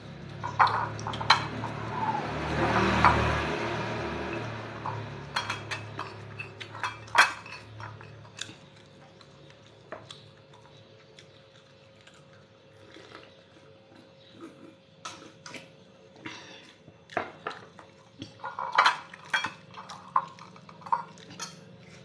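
Clinks and taps of ceramic plates and a drinking glass during a meal eaten by hand, with sharp clicks scattered throughout. A louder rushing noise comes about two to four seconds in.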